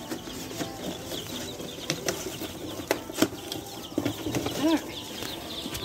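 A tub full of baby Rhode Island Red chicks peeping, many short high chirps overlapping, with a few sharp knocks as chicks are handled into a cardboard carrier.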